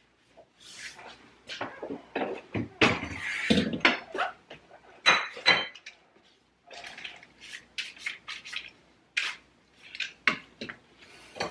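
Dishes and cutlery clattering and clinking as they are handled and set down, in irregular knocks. A couple of clinks ring briefly about five seconds in, and after a short lull the handling goes on more lightly.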